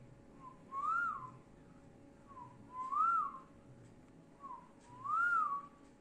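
Whistling, three times about two seconds apart: each time a short low note, then a longer note that rises and falls back.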